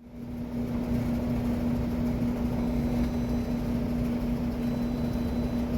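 A Maytag Neptune clothes dryer running, with a steady hum over a low rolling rumble, fading in at the start. It has more vibration and rolling noise than usual.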